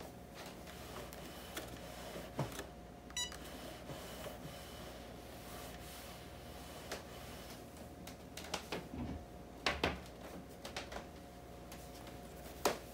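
Handheld Cricut heat press giving a short electronic beep about three seconds in, among knocks and rustles of the press and a cotton T-shirt being handled; the loudest knocks come near the end.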